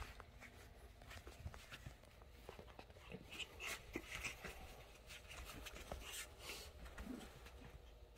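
Two small dogs play-wrestling on a bed: faint rustling and scuffling on the bedding, with a few short breathy dog sounds in the middle.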